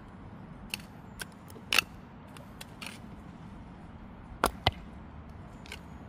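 Hand hoe chopping and scraping into dry, stony garden soil: a scatter of sharp clicks and knocks, with two loud strikes close together about four and a half seconds in.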